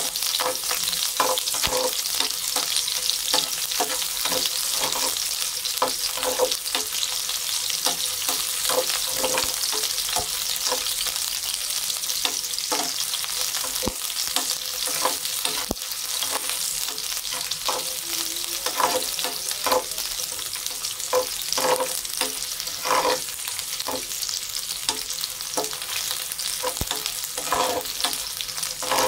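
Chopped onion sizzling in hot oil in a frying pan, with irregular scrapes and taps of a slotted metal spatula stirring it against the pan.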